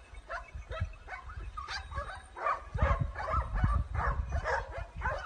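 A pack of hunting dogs barking in full chase: many short barks overlapping, growing denser about two seconds in, over a low rumble.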